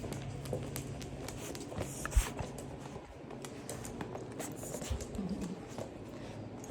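Faint scattered clicks and light rustling, with no clear single source.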